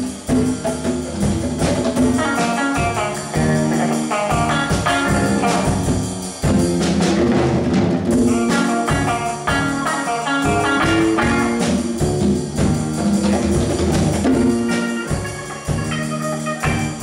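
High school jazz band playing live: saxophones and brass over a drum kit and percussion.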